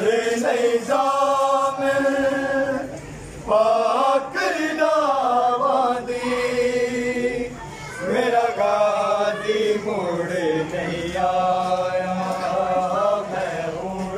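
Men chanting a noha, the Shia Muharram lament, with several voices holding long sung phrases together. The phrases last a few seconds each, with short breaths between them.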